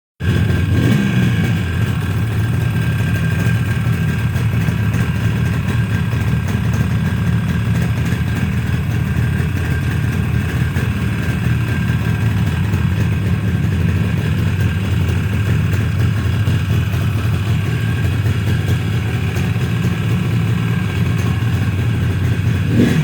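Yamaha RD350's air-cooled two-stroke parallel twin running on its first start after a rebuild: a short rev that dies back in the first second, then idling steadily.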